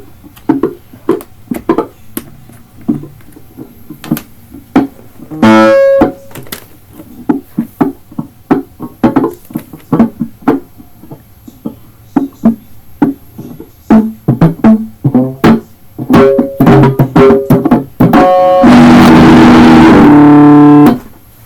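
Electric guitar through an amplifier: scattered short picked and muted notes with a few ringing notes, then a loud distorted chord held for about two seconds near the end that cuts off suddenly.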